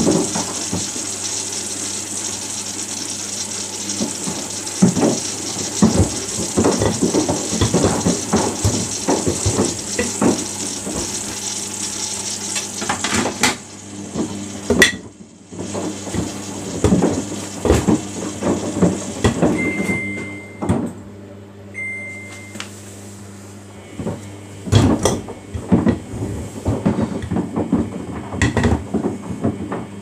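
Samsung front-loading washing machine tumbling its drum, the loose plastic detergent drawer inside knocking and clattering irregularly against the drum over a steady motor hum. Water inflow hisses for the first half and stops suddenly. Two short high beeps sound a little after two-thirds of the way in.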